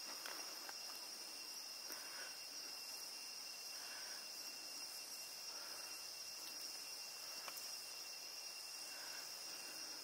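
Evening insect chorus in the forest: a steady, faint, high-pitched drone, with a few soft short calls now and then.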